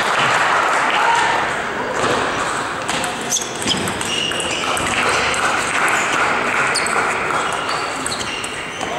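Table tennis ball clicking off the bats and the table in a rally, a string of sharp ticks starting about a third of the way in. Behind it, a steady murmur of voices and play in a large sports hall.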